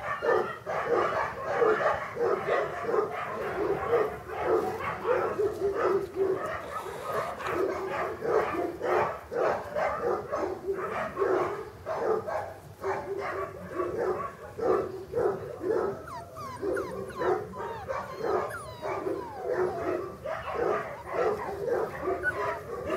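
English cocker spaniel puppies yapping and whining in quick, short calls, several a second, with a few drawn-out whines in the second half.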